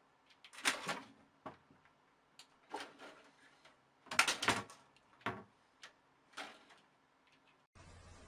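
Irregular knocks and rattles, the loudest coming in short clusters about a second in and about four seconds in, then a steady hiss takes over abruptly near the end.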